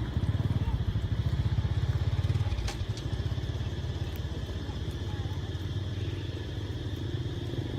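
A small engine running with a low, rapid throb, loudest for the first two seconds and then easing off a little.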